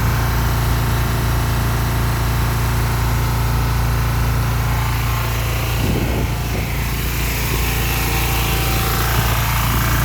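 Toyota 7FBE18 electric forklift running, a loud steady mechanical hum with a slight change about six seconds in.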